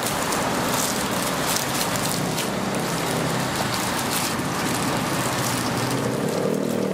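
Hot bars frying in hot oil: a steady sizzle with constant fine crackling.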